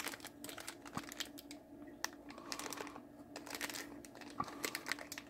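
Small clear plastic bag of DIP integrated circuits crinkling as it is turned over in the hands, a run of faint crackles and small clicks.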